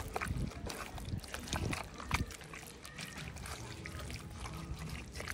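Plastic spoon stirring soy ceviche, a wet mix of soy and diced vegetables in juice: irregular soft squelches and light clicks of the spoon against the bowl.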